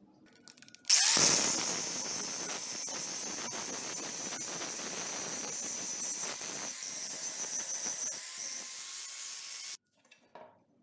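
Handheld angle grinder grinding the edge of a steel axe head, with a steady high whine over gritty grinding noise. It starts suddenly about a second in, loudest at the start, and cuts off abruptly near the end.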